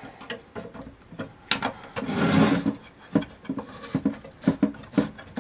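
Circuit boards being worked out of a card cage by hand: a string of clicks and knocks, and a loud scraping slide about two seconds in as a board rubs out along its guides.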